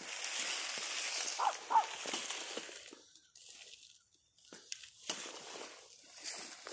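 Dry oak leaves crunching and rustling under footsteps and a rolling measuring wheel. The crunching drops away for about two seconds midway, then starts again with a sharp tick.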